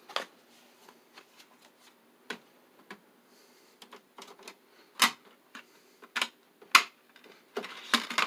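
Sharp plastic clicks and light knocks of a DVD being lifted out of an open DVD player's disc tray and discs and cases being handled. The clicks are sparse at first and come louder and closer together in the second half.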